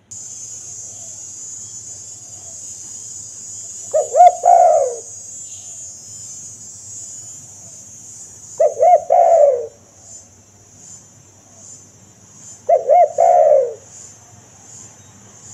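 Spotted dove (tekukur) cooing three times, each phrase two or three short notes and then a longer falling coo, about four seconds apart. A steady high hiss sounds behind it and turns into a regular pulsing about twice a second in the second half.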